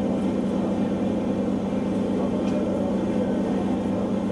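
A steady low mechanical hum, holding even throughout.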